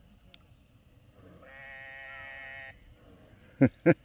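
A single drawn-out animal call at a steady pitch, lasting a little over a second, partway through. Near the end come three sharp, loud knocks in quick succession.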